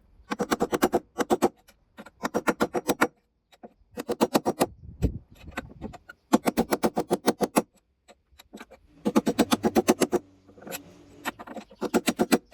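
Hammer rapidly striking a screwdriver used as a drift to drive the worn rear drum bearing out of a washing machine's tub housing. The blows come in quick runs of about eight a second, each run lasting around a second, with short pauses between.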